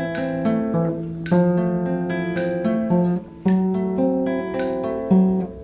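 Acoustic guitar music, picked notes and strummed chords, with a brief pause about three seconds in.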